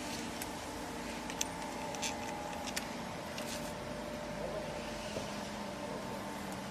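A few light clicks and taps from handling a rattan patio chair's frame during assembly, spaced irregularly over a steady background hum.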